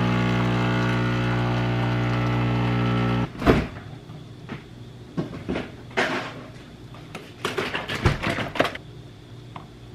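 A small appliance motor hums steadily, then cuts off suddenly about three seconds in. Scattered kitchen clatter and knocks follow, with the loudest knocks about a second after the hum stops and near the end.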